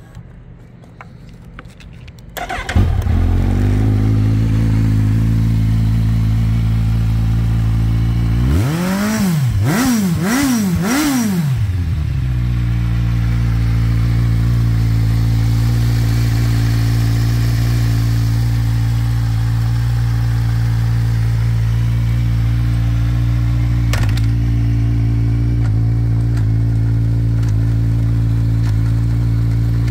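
Kawasaki Z1000's 1043 cc inline-four cranking on the starter and catching a couple of seconds in, blipped three times in quick succession, then idling steadily through aftermarket carbon end cans. A single clunk near the end as a gear is selected, after which it idles in gear with the rear wheel turning on the paddock stand.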